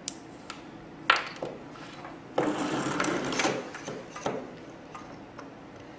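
Small clicks and scraping from a razor blade and a crimped terminal being worked on by hand: the terminal's locking tab is bent back up and the terminal is pushed back into a plastic Delphi GM alternator connector. There is a sharp click just after the start and another about a second in, a busier spell of scraping and clicking a little past halfway, and a few lighter clicks after it.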